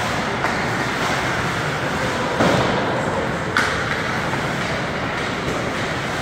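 Ice hockey game play: steady rink noise from skates and the crowd, with three sharp knocks from the play, the loudest about two and a half seconds in.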